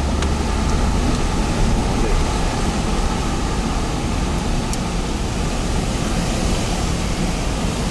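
Hurricane-force wind blowing steadily, with a heavy low rumble of wind buffeting the microphone.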